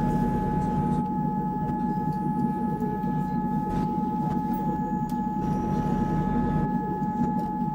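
Train running: a steady low drone with a few steady whining tones held above it.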